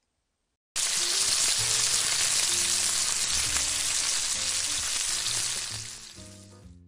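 Bacon strips sizzling in a frying pan, starting abruptly under a second in and fading out near the end.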